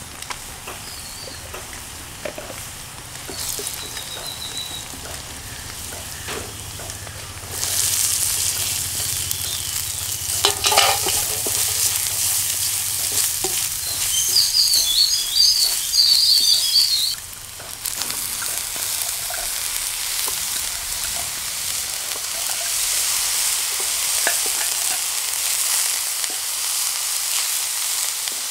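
Shallots and grated coconut frying in oil in a pan, stirred with a wooden spatula: a steady sizzle that gets much louder about a quarter of the way in, drops out briefly about two-thirds of the way through, then carries on.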